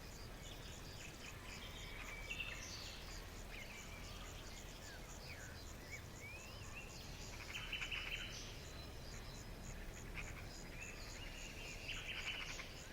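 Nature ambience of birds chirping and trilling over a steady, evenly pulsing insect chorus, with a low steady rumble underneath.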